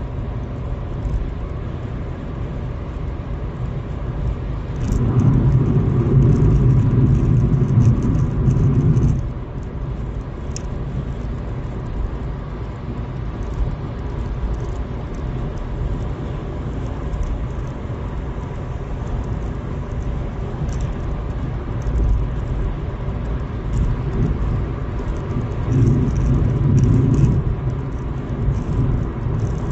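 Road and engine noise inside a moving car's cabin: a steady low rumble that swells louder twice, about five seconds in and again near the end.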